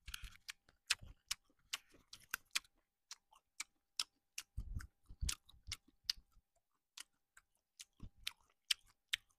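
A person chewing a mouthful of chewy seasoned cockles, with many small wet mouth clicks and a few soft low thumps about halfway through.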